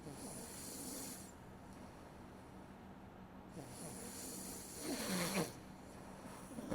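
A sleeping person snoring: two long snoring breaths, the second louder and rougher, peaking about five seconds in, and a third starting near the end.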